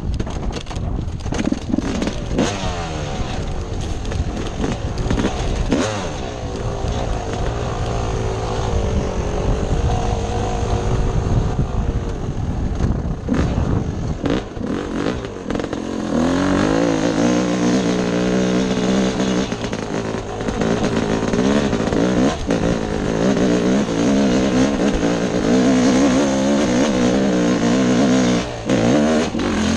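Yamaha dirt bike engine running under a rider's throttle, the revs rising and falling over rough trail, with scattered knocks and rattles. From about sixteen seconds in it holds higher, steadier revs, then drops off briefly near the end.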